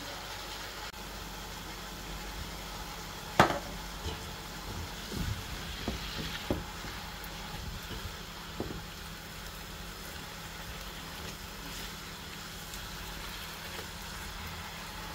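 Chicken strips frying in a non-stick pan: a steady sizzle over a low hum. A silicone spatula knocks and scrapes against the pan several times while stirring, the sharpest knock about three and a half seconds in.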